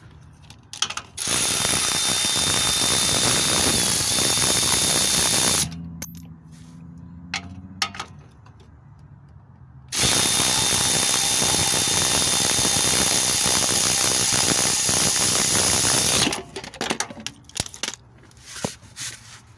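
Cordless electric ratchet running in two long runs of about four and six seconds, with a steady high whine, backing out the 13 mm bolts of a pickup's front shock absorber. Between the runs there are a few light clicks.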